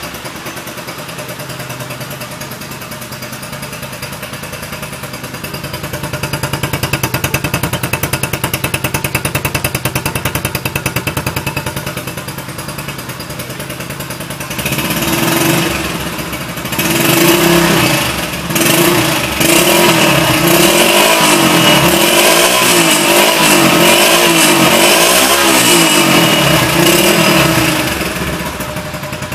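Honda Biz 100 underbone motorcycle's small single-cylinder four-stroke engine, fitted with a Roncar 'Estalinho' aftermarket exhaust, starting and idling. About halfway through it is revved up and down over and over, louder.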